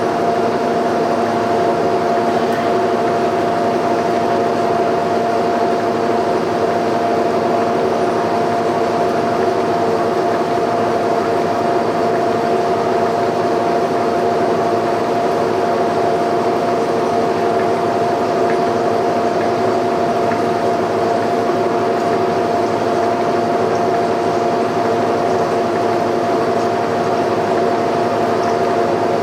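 Boring machine's drive running steadily while boring out a worn hole in a steel suspension frame: a constant whine of several steady tones over a hiss of machining noise.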